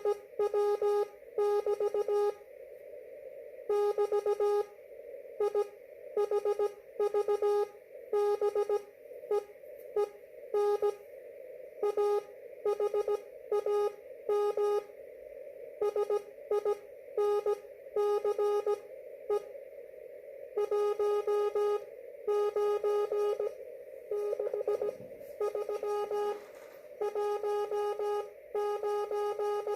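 Morse code (CW) tone from an amateur radio transceiver, keyed on and off in dots and dashes at slow speed over a steady hiss of receiver noise.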